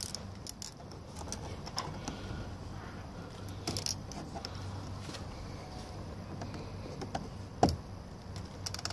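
Scattered small clicks and rattles of hands and a small tool working at plastic door trim, with one louder knock about three-quarters of the way through, over a steady low hum.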